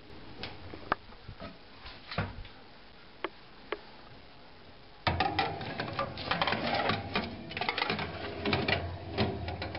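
A few light clicks, then about five seconds in a metal baking tray slid into an oven, a fast clatter and scrape of the tray on the oven rack over a low hum.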